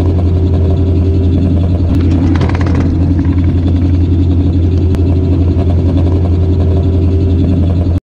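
A 7.5-inch gauge ride-on miniature train running along its track, heard from on board as a loud, steady low drone with a brief rattle around two to three seconds in.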